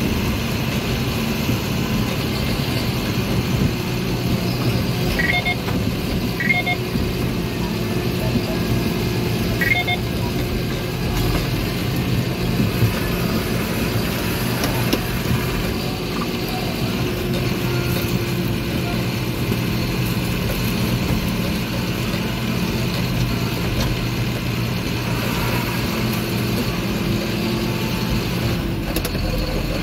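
John Deere 7530 tractor's six-cylinder diesel engine running steadily under load while ploughing, at an even pitch. A few faint short beeps sound about five to ten seconds in.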